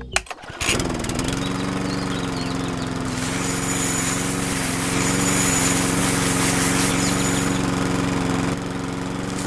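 A small motor starts about half a second in, rising briefly in pitch, then runs at a steady speed. A hiss rides over it through the middle, and it drops a little in level near the end.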